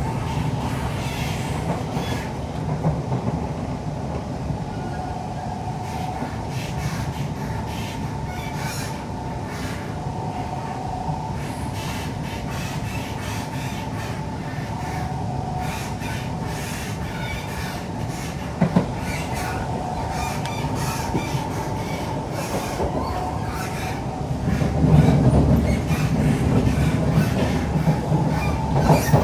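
Siemens C651 metro train heard from inside the car while running at speed: a steady rumble of wheels on rail with a faint motor whine. A single sharp clack comes about two-thirds of the way through, and the rumble grows louder over the last few seconds.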